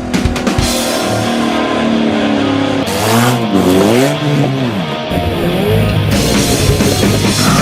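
Loud rock intro music with electric guitar and drums. About three seconds in, a pitched sound swoops down and back up over about two seconds before the music carries on.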